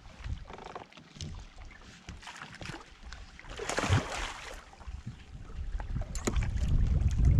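Water and handling sounds at a kayak: a splash about four seconds in, a few sharp clicks around six seconds, and low rumbling that grows louder toward the end.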